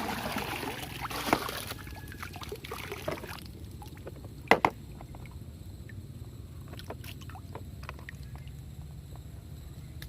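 Water splashing and pouring for the first second or two while toy cars are washed, then a quieter stretch with scattered clicks and two sharp knocks about four and a half seconds in, from the plastic toys being handled.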